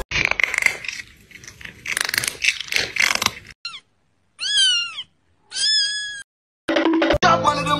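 Cat meme sound clips: about three seconds of harsh, noisy cat screaming, then a kitten's crying meows, two drawn-out calls that rise and fall in pitch.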